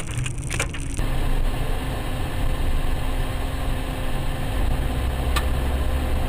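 Car engine and road noise heard from inside the cabin: a steady hum over a low rumble, which grows stronger about two-thirds of the way through. The sound changes abruptly about a second in, and a single sharp click comes near the end.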